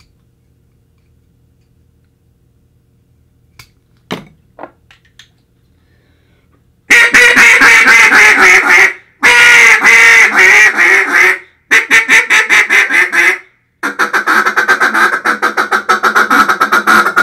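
A few small clicks about four seconds in, then a duck call with a freshly trimmed reed blown in four loud runs of quacks, the last a faster, even series. The blowing tests the pitch and the air the call takes after the trim, and the tone is about where the caller wants it.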